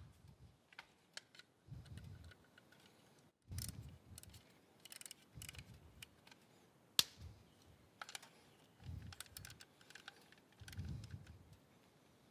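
Scattered clicks, taps and soft knocks of a cover panel and its screws being handled and fastened back onto a motorcycle, with one sharper click about halfway through.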